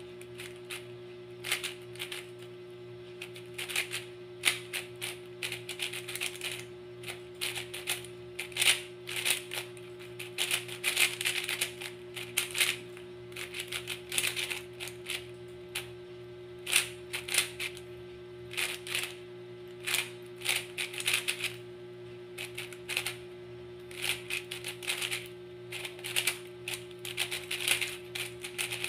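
A YJ MGC 4x4 magnetic speedcube being turned by hand: quick, uneven flurries of plastic clicking and clacking as its layers snap round, with short pauses between flurries.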